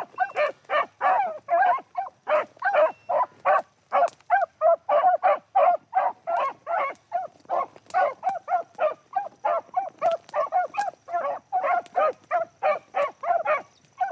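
Beagles baying: an unbroken run of short calls, about three a second, the voice of hounds running a rabbit track.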